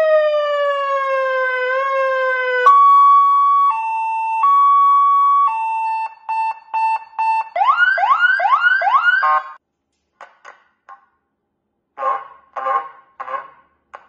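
Electronic car siren sounding through a horn speaker and cycling through its tones. It starts with a slowly falling wail, then a two-tone high-low, a run of quick beeps, and about four fast rising whoops. After a few faint clicks, three short horn blasts come near the end.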